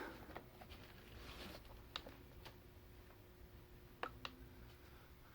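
Near silence: room tone with a faint steady hum and a few soft clicks, a pair about two seconds in and another pair about four seconds in.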